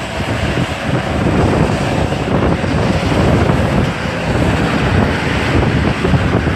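Hurricane gusts buffeting the microphone: a loud, continuous low rumble that flutters with the wind.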